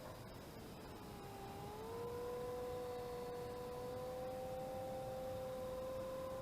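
Whine of the small electric motor and propeller on a lightweight RC model airplane in flight. The pitch sags early, climbs back about two seconds in and then holds steady.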